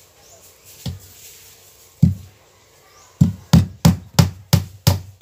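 Hammer blows on the wooden top edge of a plywood boat cabin: two single strikes, then a steady run of blows about three a second from about three seconds in.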